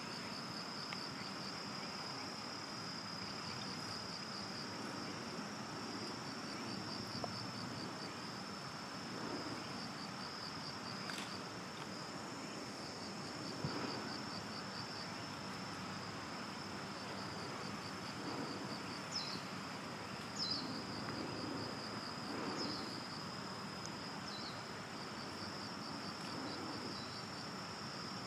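Crickets chirping in a steady, rhythmic pulsed trill. A few short falling chirps come in near the end, and there are a couple of faint knocks near the middle.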